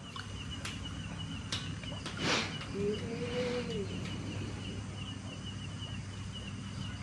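Night background: a steady high insect trill over a low hum. A short burst of noise comes about two seconds in, and a brief tone that rises and falls follows about a second later.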